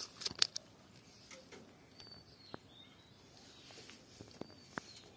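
A large tilapia flopping on grassy ground: a quick run of slaps and rustles in the first half-second, then a few single taps. Faint short bird chirps in the background.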